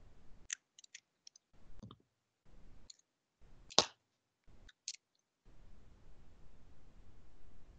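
Scattered light clicks picked up through a video-call microphone, with one sharper click about four seconds in. A faint hiss cuts in and out between them.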